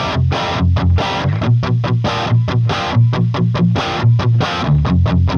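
Distorted electric guitar played through Neural Amp Modeler's Marshall 800 amp capture and an Orange 2x12 cabinet impulse response. It plays a fast, choppy riff of short, heavy low notes with brief stops between them.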